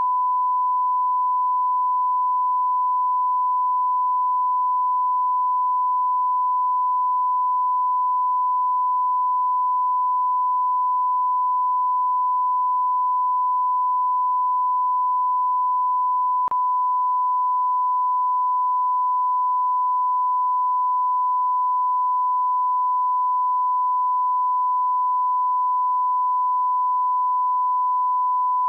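Continuous 1 kHz sine-wave television test tone, a single pure pitch held at a constant level.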